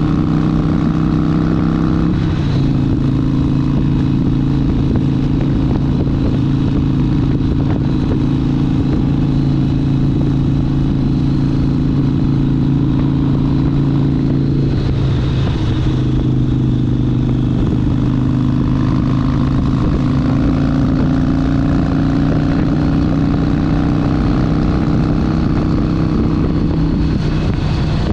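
Harley-Davidson Sportster 72's air-cooled V-twin engine running under way on a ride. Its pitch steps down about two seconds in, wavers around the middle, and shifts again near the end.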